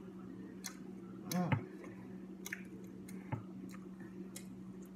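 Close-miked mouth sounds of a person eating fried chicken nuggets: wet chewing with a scattering of sharp lip smacks and clicks.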